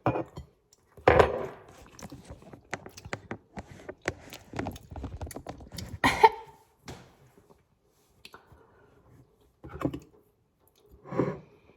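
A fork tapping and scraping on a plate while working at a crumbly brownie: scattered small clicks and knocks, with a few louder clatters.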